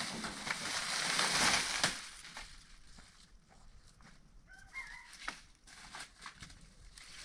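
A loud, rushing noise for about the first two seconds, then quieter surroundings with a chicken calling briefly about five seconds in, and a few light clicks.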